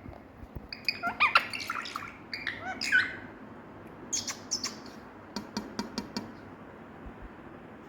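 Pet Indian ringneck parakeet chirping and squawking in short, gliding calls, then giving higher squeaks and a quick run of sharp clicks. It goes quiet for the last second or two.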